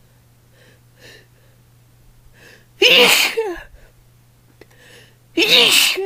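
A woman sneezing twice, about two and a half seconds apart, each sneeze carrying a voiced cry that falls in pitch, with small catching breaths before the first. The sneezes are induced with chhinkni, a sneeze-inducing herbal powder.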